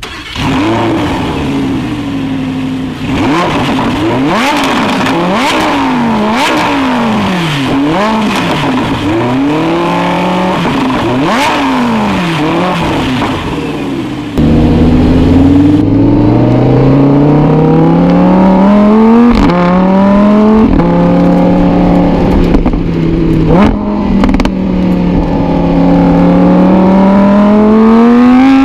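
Lamborghini Huracán's 5.2-litre V10 revved in quick repeated throttle blips, the pitch rising and falling each time. About halfway through it gets suddenly louder and pulls through long rising runs, broken twice by sudden drops in pitch like upshifts.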